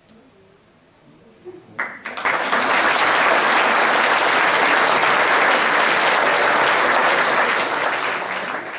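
Audience applauding: a few scattered claps about a second and a half in, then full, steady applause that eases slightly near the end.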